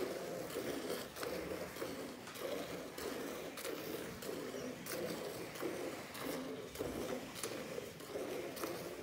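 Cow being milked by hand: milk squirting from the teats into a steel pot of frothy milk, in a steady rhythm of about two squirts a second.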